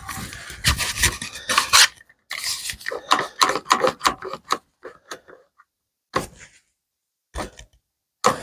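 Glued pallet-wood slats rubbing and scraping against each other as they are shifted into line and clamped. The rubbing runs for the first four seconds or so, then gives way to a few short, separate knocks and clicks.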